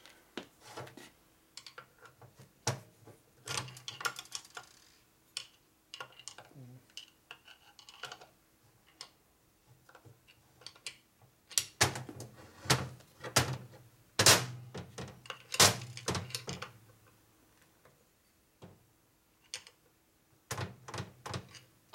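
Metal transmission parts and hand tools being handled: scattered clicks and knocks, with a run of louder knocks in the second half.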